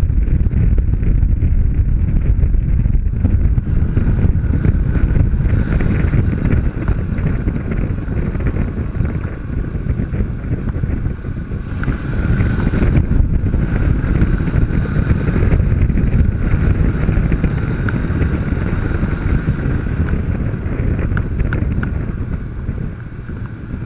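Honda CB500 parallel-twin motorcycle ridden at speed, its engine heard under heavy wind buffeting on the onboard camera's microphone. The noise eases briefly about halfway through and again near the end.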